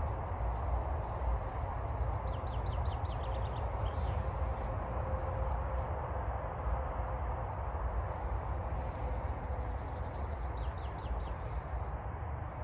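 Outdoor ambience: a steady low rumble with birds chirping, including two quick runs of rapid chirps, one about two seconds in and one near the end.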